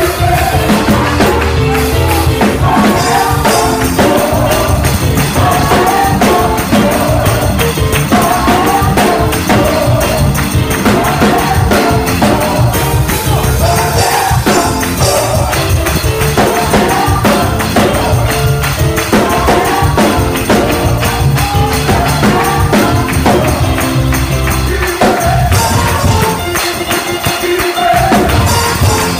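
Live gospel music: a group of voices singing in repeated phrases over a drum kit, with a tambourine shaking a steady beat. The sound thins out briefly near the end before the full band comes back in.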